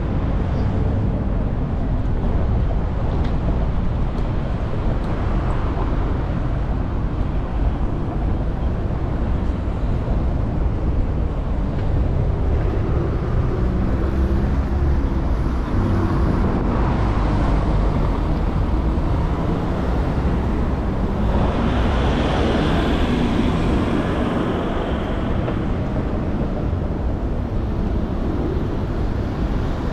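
City street traffic with cars passing, a steady rumble. One vehicle goes by louder about three-quarters of the way through.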